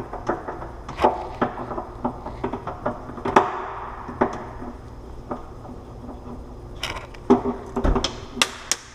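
Kitchen cabinet door and its concealed European hinge clicking and knocking as the door is worked open and shut, in irregular sharp taps with a quick cluster of louder knocks near the end. The self-closing hinge doesn't really want to self-close.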